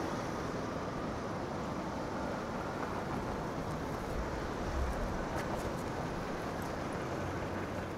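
Steady street ambience: a continuous wash of city traffic noise.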